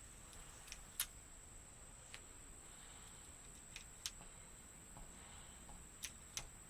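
Near silence broken by a few faint, sharp clicks at irregular intervals, the strongest about a second in, over a steady high-pitched whine.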